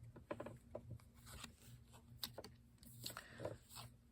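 Faint handling of playing cards: a few soft clicks and slides as cards are flipped and set down one at a time.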